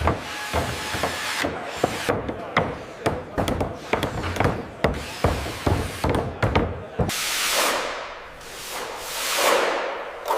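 Fast, irregular knocks and hammer blows on wood, several a second, as white oak herringbone flooring goes down. About seven seconds in these give way to several long whooshes falling in pitch.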